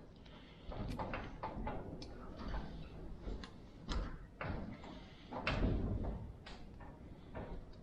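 Irregular clicks, knocks and scrapes of plastic pieces being worked loose from the metal casting of a die-cast Ertl 8RT toy tractor.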